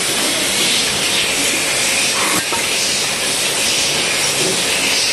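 Automatic nut thread-sorting machine running with a loud, steady hiss, and a single click about halfway through.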